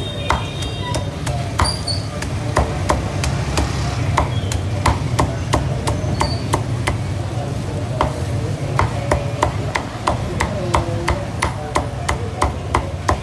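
Cleaver chopping roast pork on a block: sharp, quick chops at about two to three a second, unevenly spaced, over a steady low rumble.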